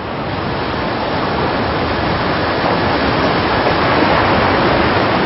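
Steady rush of choppy sea water and wind, growing a little louder over the first couple of seconds.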